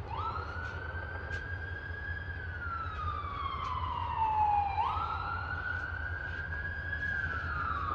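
A siren wailing, its pitch jumping up quickly, holding, then sliding slowly down, twice in a cycle about five seconds long, over a steady low rumble.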